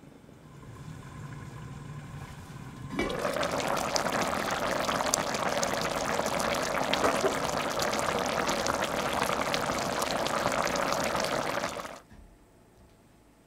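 Chicken and chestnut stew simmering in an open enamelled cast-iron pot: a dense, steady bubbling and popping of the braising liquid. It starts suddenly about three seconds in and cuts off abruptly near the end.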